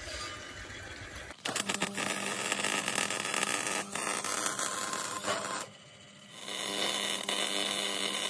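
MIG welder's arc crackling and hissing as wire is fed into a weld on steel, starting about a second and a half in. The arc breaks off for about a second past the halfway mark, then strikes again.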